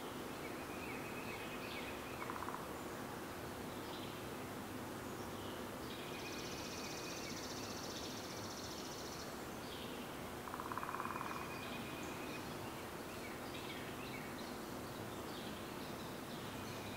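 Woodland songbirds calling: scattered short chirps and whistled notes, a high buzzy trill for about three seconds mid-way, and two brief lower buzzy sounds, the loudest moments, over a faint steady low hum.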